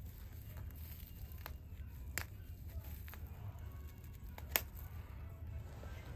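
Grass and weeds being pulled by hand from the edge of a concrete path: faint tearing and rustling, with two sharp clicks about two and four and a half seconds in, over a low steady rumble.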